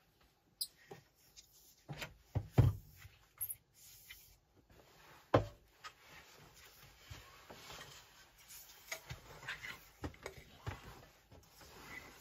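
Aluminium ladder being unhooked from a motorhome's drop-down bed, knocking and clattering a few times: a cluster of knocks around two to three seconds in and a sharp single knock a little after five seconds. After that comes soft rustling and rubbing of the duvet being handled.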